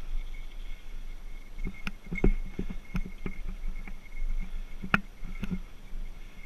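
Mountain bike rolling over a rough dirt single track: a steady rumble of tyres and frame, with sharp knocks and rattles as it hits bumps, loudest about two seconds in and again near five seconds. A bear bell on the bike jingles throughout.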